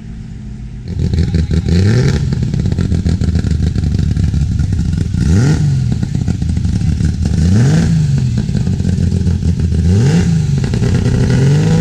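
Classic British sports car engine revved repeatedly, a rise and fall in pitch about every two seconds, starting about a second in.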